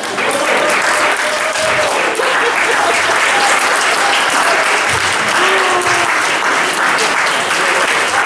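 Church congregation applauding steadily, with a few voices calling out over the clapping.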